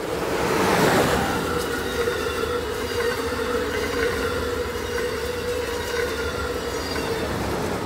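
Electric Amtrak Acela Express trainset passing at speed. The rush of the lead power car peaks about a second in, then the coaches go by with a steady rumble of wheels on rail, a steady hum and a few light clicks.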